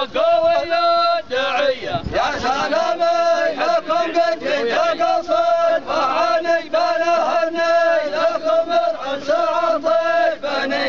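A group of men chanting together in unison, a Yemeni zamil: held notes in short repeated phrases, with a brief break about two seconds in.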